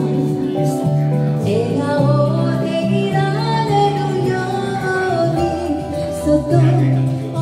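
A woman singing a Japanese pop song into a microphone over a karaoke backing track, her voice amplified through the room's speakers.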